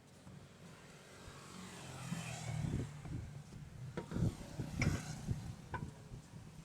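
A motor vehicle growing louder and passing, followed by several sharp knocks and metallic clinks.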